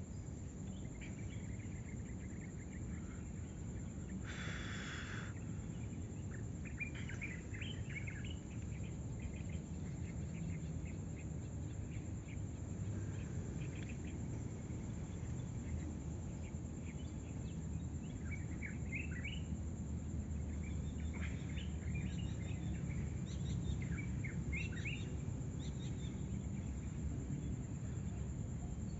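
Birds chirping on and off, in short scattered calls, over a low steady rumble of outdoor background noise. A brief hiss lasting about a second comes about four seconds in.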